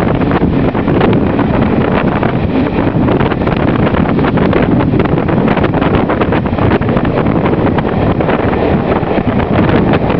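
Heavy wind buffeting the microphone held out of the window of a moving Class 47 diesel-hauled train, over the steady rumble of the train running on the rails.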